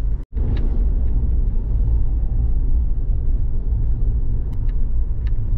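Suzuki Jimny JB74 driving along, a steady low rumble of engine and road noise that cuts out for an instant near the start.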